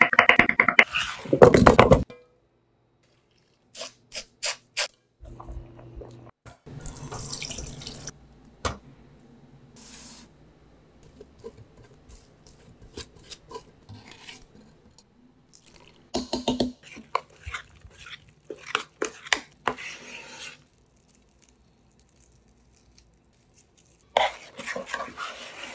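Kitchen preparation sounds. Near the start a chef's knife chops peeled potatoes on a wooden cutting board in quick knocks. Then come scattered clicks and scrapes of utensils, with running water.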